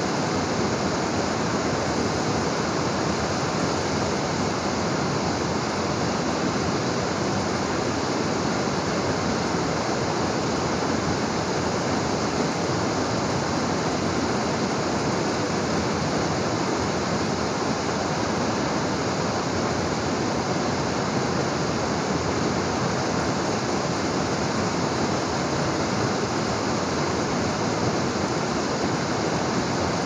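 Waterfall pouring steadily: an even, unbroken rush of falling water.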